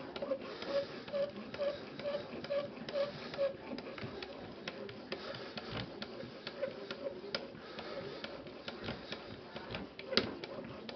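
Edge Pro Apex sharpening stone stroked back and forth along the Spyderco Endura 4's ZDP-189 steel blade: a quick rhythmic scrape of about three strokes a second, with scattered light clicks and a short easing of the rhythm in the middle.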